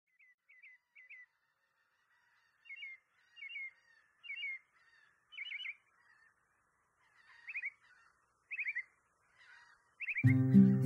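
Bird calls: small clusters of two to four quick, falling chirps, repeated roughly once a second over a faint hiss. Acoustic guitar music comes in loudly near the end.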